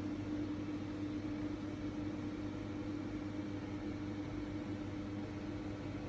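Small electric cooling fan running steadily: an even hiss with a constant hum under it.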